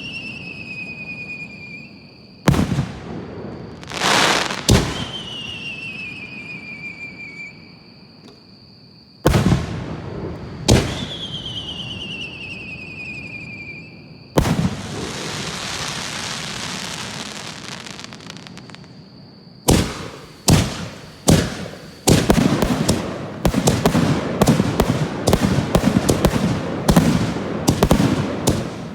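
Aerial firework shells bursting with sharp bangs, two of them followed by a falling whistle. About halfway through one burst is followed by a long hiss lasting several seconds. From about 20 seconds on the bursts come thick and fast in a rapid finale barrage.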